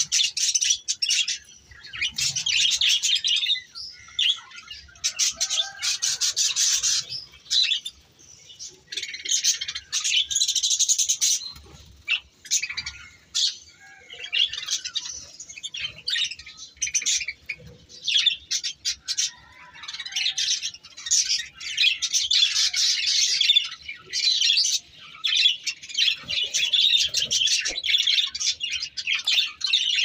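Budgerigars chirping and chattering in quick, high runs of one to three seconds, with short pauses between them.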